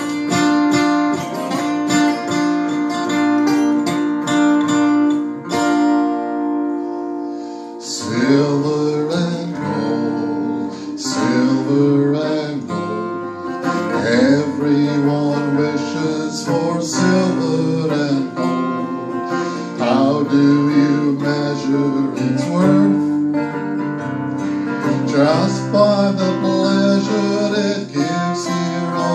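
Two acoustic guitars: a strummed closing chord rings for about six seconds and fades, then strummed chords with picked bass notes start up again about eight seconds in.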